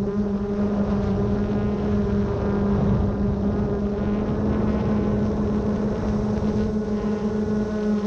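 A motor humming at a steady, unchanging pitch, with rushing noise underneath.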